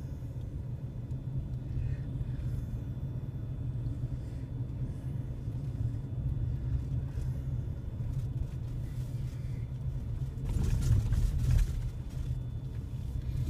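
Road noise heard inside a slowly moving car: a steady low rumble, with a louder rush of noise from about ten to twelve seconds in.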